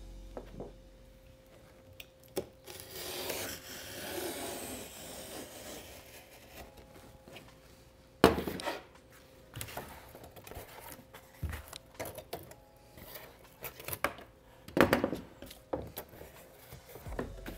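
A large sheet of cardboard and a metal drywall square being handled. A scraping rub comes a few seconds in, then sharp knocks about eight and fifteen seconds in, with lighter taps and rustles between them.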